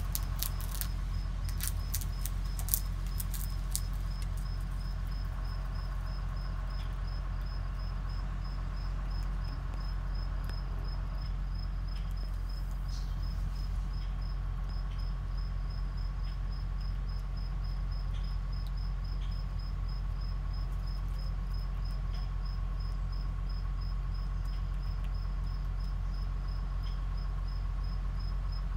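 A cricket chirps steadily in a high, evenly repeated pulse over a constant low hum. In the first few seconds a black squirrel (an eastern gray squirrel of the black form) cracks a peanut shell with several sharp clicks, and there are a few fainter clicks from its chewing later on.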